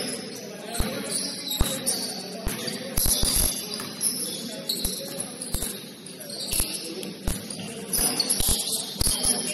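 Basketball game on an indoor court: sneakers squeaking on the floor in short high chirps, with a ball bouncing in irregular thuds.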